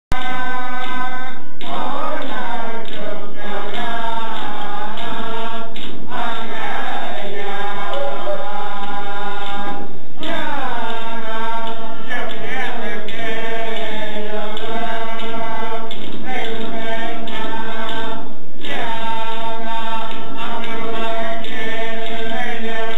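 A chorus of men and women singing together in unison, chant-like, with short breaks between phrases, to the beat of Iñupiaq frame drums (qilaun), large skin drums struck with a thin stick.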